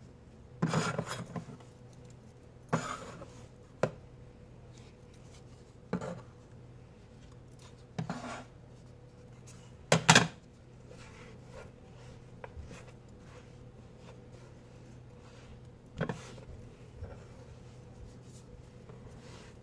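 Knocks and clatters of kitchen items being handled and set down on a counter: a sharp knock every two seconds or so at first, the loudest a double knock about ten seconds in, then sparser, with light handling noises between them.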